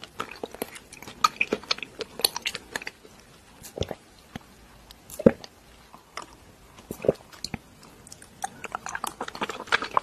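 Close-miked drinking of bubble milk tea: sipping through a wide straw and chewing tapioca pearls, a run of quick wet clicks and squishes. A few louder, deeper clicks stand out about four, five and seven seconds in, and the clicking thickens again near the end.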